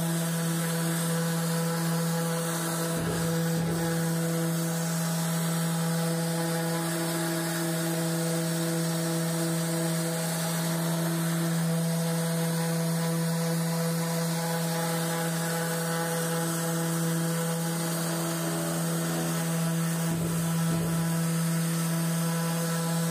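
Festool ETS random orbital sander running steadily with its pad against a curved wall, giving a constant-pitch motor hum over a hiss of abrasive on the surface.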